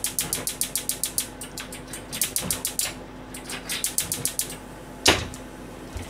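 Rapid runs of sharp ticks or taps, about six a second, coming in three bursts, with one louder knock about five seconds in.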